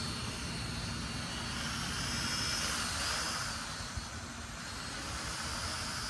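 UDI toy quadcopter's four small electric motors and propellers whining steadily in flight, the high whine wavering slightly in pitch midway.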